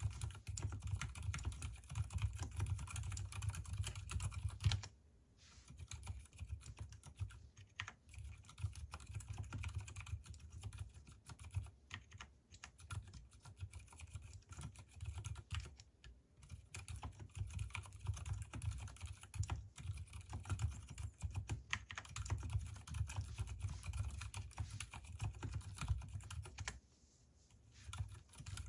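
Continuous fast typing on an Mstone Groove T mechanical keyboard with Gateron silent brown switches, which are unlubricated while the stabilizers are lubed. The keystrokes come in a dense stream, with brief pauses about five seconds in and again near the end.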